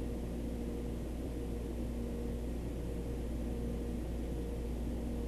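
Steady low hum with two faint steady higher tones over an even hiss, unchanging throughout: background electrical or equipment hum.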